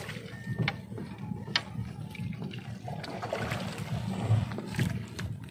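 Water sloshing and dripping, with scattered light knocks and clicks over a steady low rumble.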